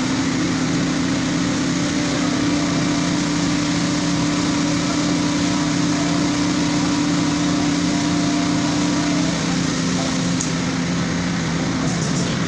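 A small engine of site machinery running steadily at a constant pitch, its note shifting slightly about nine seconds in.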